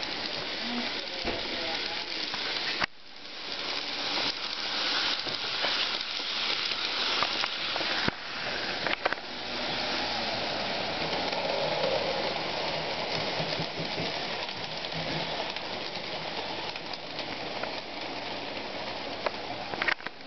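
HO-scale Athearn GP7 model diesel locomotive running along the track: a steady, hissing whir of its motor and gears, with a few sharp clicks. The sound drops out briefly about three seconds in.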